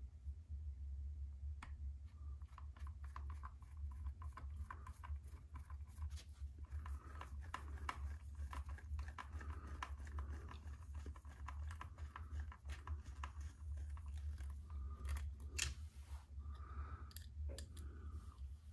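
Small screws being turned into a plastic RC car chassis with a hex driver: many small irregular clicks and short creaks as the threads bite, over a steady low hum.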